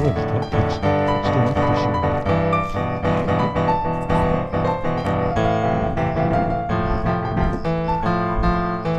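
Background piano music: a melody over steady chords.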